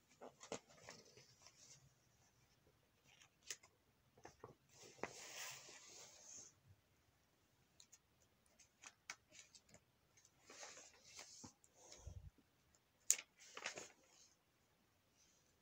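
Faint handling of a glossy paper magazine: pages rustling and being turned, with light taps and clicks in short, scattered bursts.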